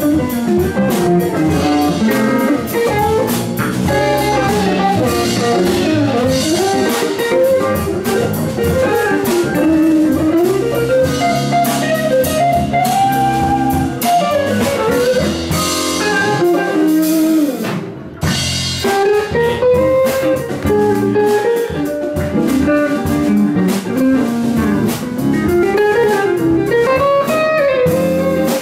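Live band playing an instrumental jam: electric guitars carrying bending melodic lines over electric bass and a drum kit. The music breaks off for a moment about two-thirds of the way through, then picks up again.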